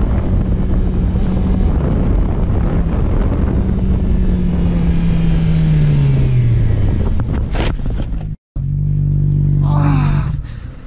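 Sport motorcycle's engine running at speed under heavy wind rush. The engine note falls about four to seven seconds in, and a sudden sharp noise follows about a second later. After a brief break the engine is heard holding a steady note, and a short voice sound comes near the end.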